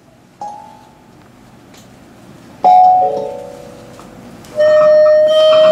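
Kalimba notes ringing out: a soft single note, then about halfway through a louder cluster of several notes that rings and fades, and near the end a louder steady ringing tone.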